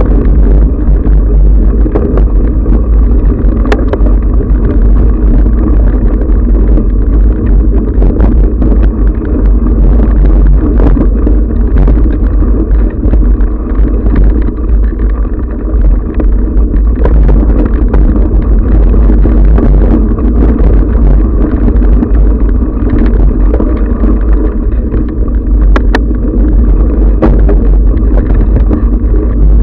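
Loud, continuous rumble of a camera mounted on a rider moving along a dirt singletrack trail: heavy wind buffeting on the microphone, with frequent knocks and rattles from bumps in the trail.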